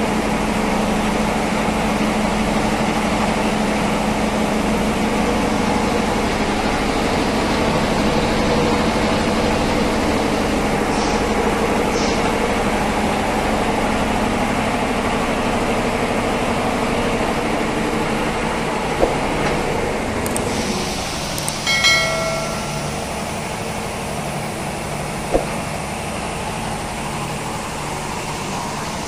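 Belt-driven reciprocating air compressors running steadily with a low hum. About two-thirds of the way through the sound drops a little, followed by a brief squeak and a couple of clicks.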